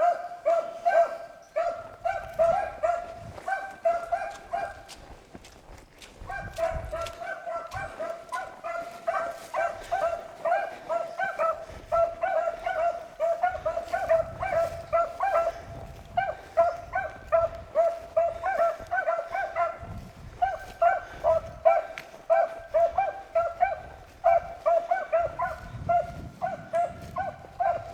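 Beagles baying in chase, a steady run of short repeated hound calls from the pack as they work a rabbit's track. About five seconds in, the baying drops away briefly, then picks up again.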